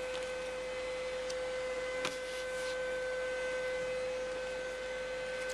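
A steady background hum: one constant mid-pitched tone with fainter higher tones above it, over an even hiss. A faint click comes about two seconds in.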